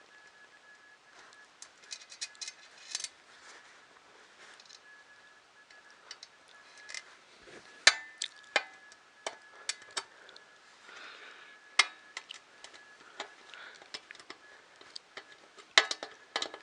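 Irregular sharp clicks and metallic clinks of small hardware and tools being handled while bolting parts together, a cluster about three seconds in and louder single clinks later on.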